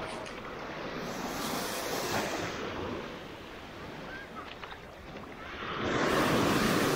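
Small Black Sea waves breaking and washing up the sand shore, with wind on the microphone; a wave surges in louder near the end.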